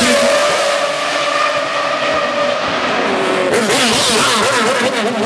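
Súper TC2000 Chevrolet Cruze race car engine at high revs, passing close by. Near the end the revs rise and fall several times in quick succession.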